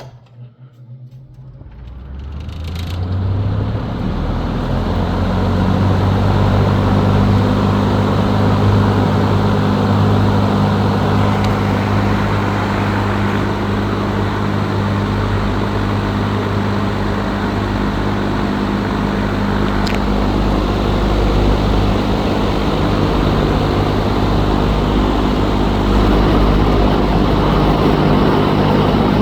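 Direct-drive ceiling fan switched on at low speed: the motor hum builds as the fan spins up over the first few seconds, then holds as a steady low hum.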